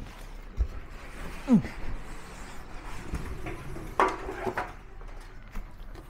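Cardboard packing box being slid up off a washing machine and handled: scraping and rustling cardboard with a dull thump about half a second in and a sharper knock about four seconds in.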